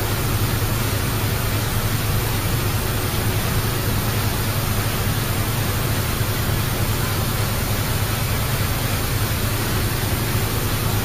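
Steady running noise of factory machinery: a low hum under an even hiss, with no change or distinct strokes.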